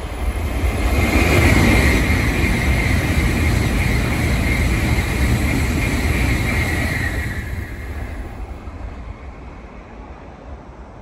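N700-series Shinkansen bullet train passing through a station at speed without stopping: a rush of air and wheel noise that swells within the first two seconds, holds for about five seconds as the cars go by, then fades away.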